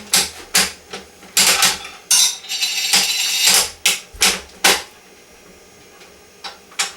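Coin-operated gumball vending machine being worked: a run of sharp clicks and rattles from its turning dial and mechanism, with a longer rattle in the middle, stopping about five seconds in.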